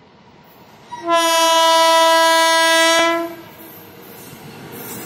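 Indian Railways electric locomotive sounding its horn in one long, steady blast of about two seconds as it approaches with a container freight train. Near the end the rumble of the oncoming train grows louder.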